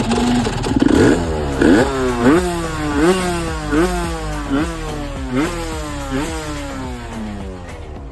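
Aprilia RS 125's two-stroke single-cylinder engine revving over and over, the revs rising sharply and falling back about once every 0.8 s.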